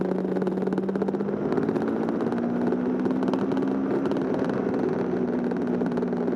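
Motorcycle engine running at a steady cruise under wind and road noise. The engine note rises a little about two seconds in, then settles.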